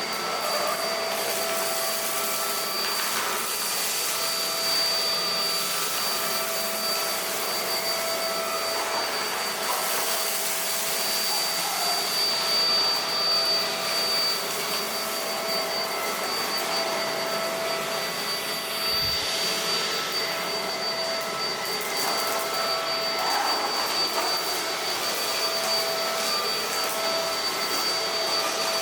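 Roidmi X20 cordless stick vacuum running steadily on its lowest suction setting: an even rushing of air with a constant high motor whine.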